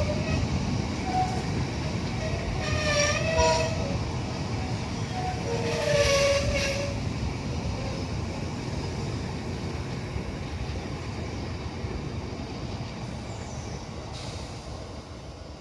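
Freight train of covered hopper wagons rolling past, its wheels rumbling steadily on the rails. Two brief squealing tones come about three seconds in and again about six seconds in. The rumble then fades as the end of the train goes by.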